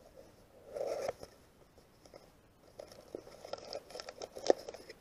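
Brown kraft packing paper rustling and crinkling as it is pulled away from a small cardboard box, with light handling clicks and taps. There is a short rustle about a second in, then a run of small crackles toward the end, with one sharp click among them.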